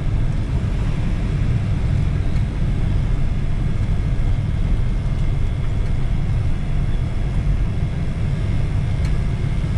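A steady low rumble that wavers in strength.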